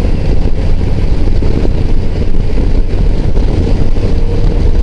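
BMW motorcycle engine running steadily at cruising speed, a low, even rumble mixed with road and wind noise.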